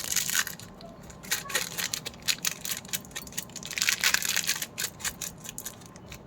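Candy wrapper crinkling and tearing as packaging is handled and opened: dense runs of sharp crackles, heaviest at the start and again about four seconds in, thinning toward the end.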